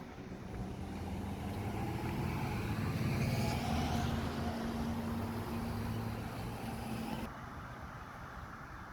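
Fire truck's diesel engine running as the rig moves past, growing louder toward the middle and holding steady, then dropping off abruptly about seven seconds in.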